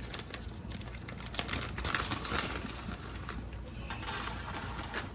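A spoon clicking and scraping against a baking dish as macaroni and cheese is spooned in and layered, with a run of light taps and a longer scrape about two seconds in.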